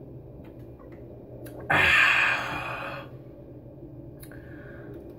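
A man drinking from a 40 oz malt liquor bottle held up to his mouth. Over a low room hum, one loud breathy rush comes about two seconds in, lasts about a second and fades.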